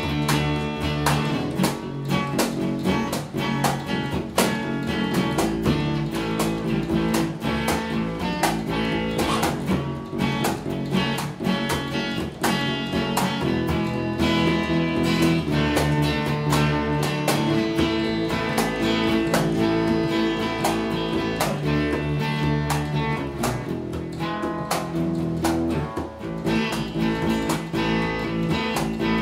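Acoustic guitar strummed steadily through a chord progression, the chords changing every second or two.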